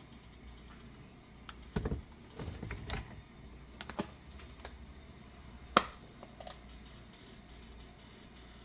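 Scattered light clicks and knocks as seasoning containers are handled at the stove: a few taps about two to three seconds in and a sharper single knock about six seconds in.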